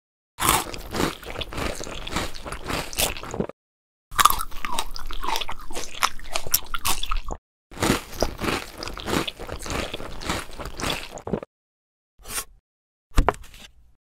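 Dubbed crunching and chewing eating sounds: three crackly stretches of about three seconds each, with dead silence between, then two short crunches near the end.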